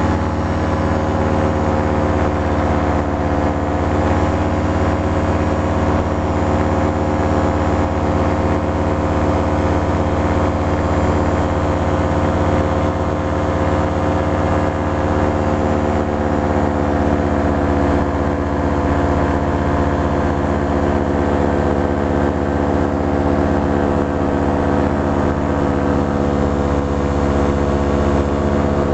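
Paramotor engine and propeller running steadily in flight, a loud even drone heard from the pilot's seat. Its pitch dips slightly a few seconds in and again around the middle.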